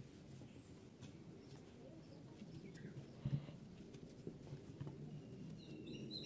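Hands kneading bread dough on a wooden board: faint soft pressing and patting sounds, with one heavier thump about three seconds in.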